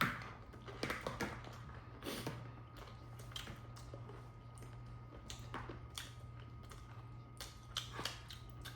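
Close-up eating sounds: scattered soft crunches and clicks of food being bitten and chewed, over a low steady electrical hum.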